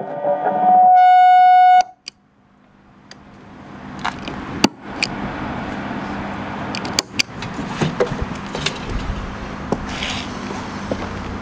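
Electric guitar through a DIY Fuzz Face pedal into a Dynacord MV17 amp: the last fuzzed notes, then one loud held note that cuts off abruptly about two seconds in. After a moment of near silence, the rig's hiss and hum swell up and hold steady, with scattered clicks.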